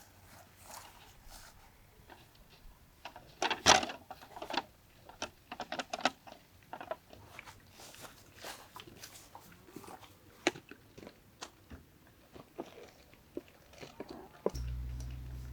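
Scattered close crunches and clicks at an uneven pace, the loudest a sharp knock about four seconds in. A low steady rumble comes in near the end.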